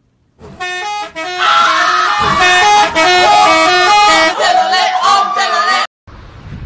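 Indonesian 'telolet' musical bus horn playing a quick tune of stepped horn notes, with a crowd of voices shouting over it from about a second in. It cuts off abruptly near the end, leaving wind noise on the microphone.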